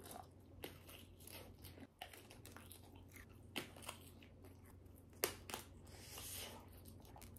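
Close-miked biting and chewing of a cheese-filled sausage: faint wet mouth clicks and smacks, with sharper clicks about three and a half and five seconds in.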